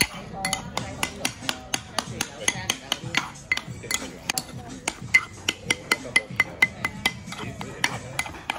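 Metal spoon striking and scraping against a stone molcajete while mashing guacamole: a steady run of sharp clicks, about four or five a second, each with a light ring.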